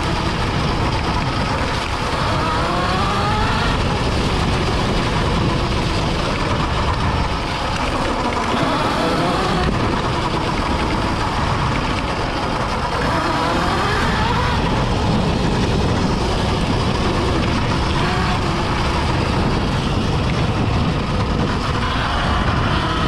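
Electric dirt bike being ridden on a trail: the electric motor's whine rises and falls in pitch with the throttle several times, over a steady low rumble of wind and riding noise.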